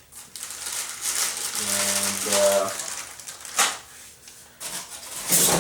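Unboxed parts and their packaging being handled: plastic wrapping crinkling and rustling, then a few sharp clicks and knocks of plastic parts.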